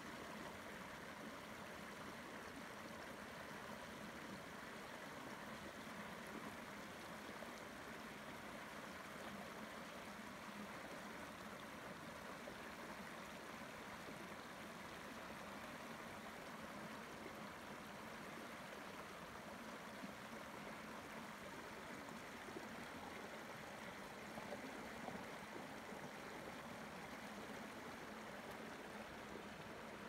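Shallow stream water flowing steadily over rock, with a few faint taps in the last third.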